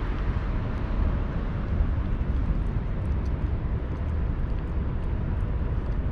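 Steady low outdoor rumble, with faint soft clicks of a cat licking paste treat from a squeeze tube held to its mouth.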